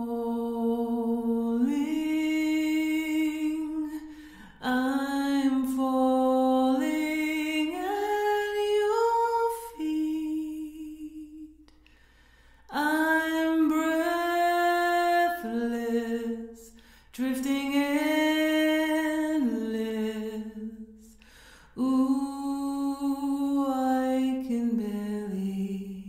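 A woman singing slow, held notes with no accompaniment, in phrases of a few seconds with short breaks between them.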